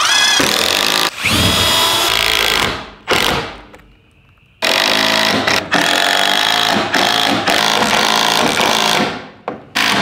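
Cordless impact driver running screws into a wooden leg post, in two long runs with a short pause about four seconds in and brief bursts between.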